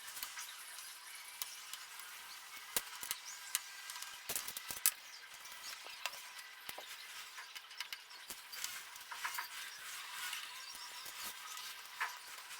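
Small Phillips screwdriver turning out the screws of a laptop's plastic bottom case: faint, irregular clicks and light scraping.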